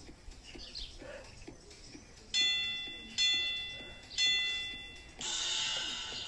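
Workout interval timer counting down: three short ringing chime tones about a second apart, then a longer, harsher tone that marks the start of the next interval. Birds chirp faintly behind it.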